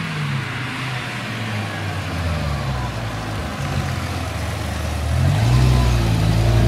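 Car engine dropping in revs, running low and steady, then picking up and getting louder about five seconds in.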